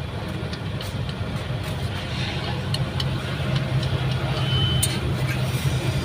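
A steady low engine-like hum with a few faint clicks.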